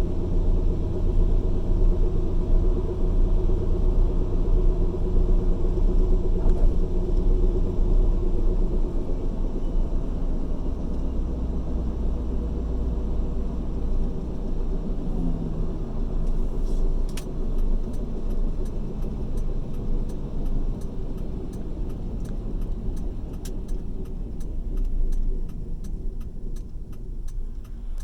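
2004 Ford F-150 pickup on the move with a steady low whirring hum, which the owner suspects comes from its 9.75-inch rear axle. The hum eases a little partway through, and about two light ticks a second come in during the last third.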